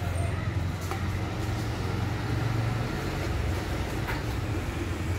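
A steady low engine rumble, with a couple of light knocks about a second in and again near the end.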